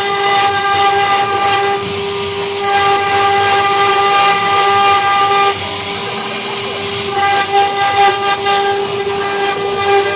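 CNC router spindle carving wood: a loud, steady high whine with the rasp of the bit cutting, the upper tones dropping away briefly twice as the cut eases.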